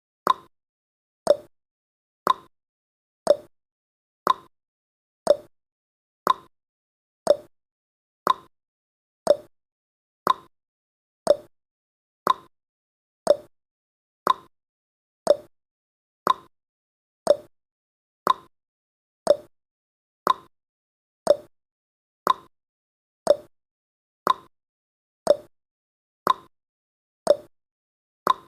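Countdown timer's ticking sound effect: one short tick every second, each fading fast, keeping a steady beat.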